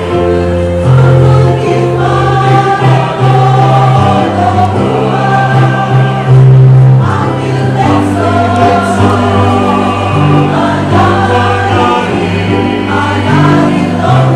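Mixed amateur choir singing in parts, with the voices' pitch lines moving above steady low held notes from a keyboard accompaniment that change in steps.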